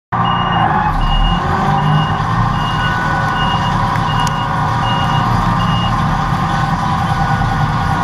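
Claas Lexion 740 combine running while harvesting corn, heard from inside the machine by its cleaning sieves: a loud, steady mechanical din. A high electronic beeper sounds about eight times, evenly spaced, and stops about six seconds in.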